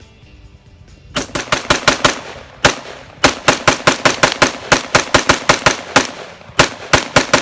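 Ruger AR-556 rifle in 5.56 firing rapid semi-automatic shots, about five a second. The shots come in three quick strings with short breaks between them.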